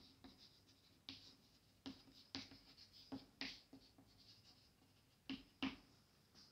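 Chalk writing on a chalkboard: faint, irregular short taps and scratches as each stroke is written.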